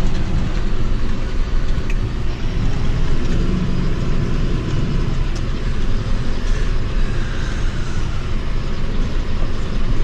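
John Deere tractor engine running steadily under ploughing load, heard from inside the cab.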